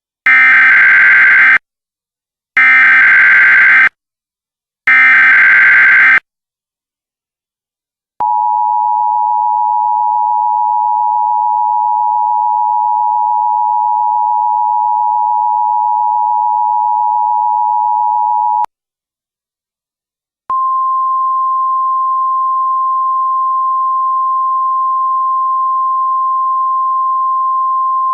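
Emergency Alert System tones: three short screeching bursts of SAME digital data, then about ten seconds of the steady two-tone attention signal. After a two-second pause, a single steady tone starts, slightly higher, as used for NOAA Weather Radio alerts.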